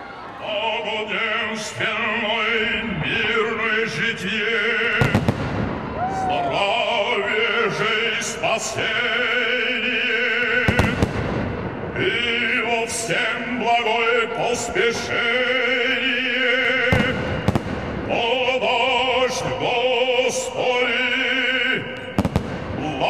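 Operatic music with a singer's wavering, held notes, over which fireworks crack and bang many times at irregular intervals.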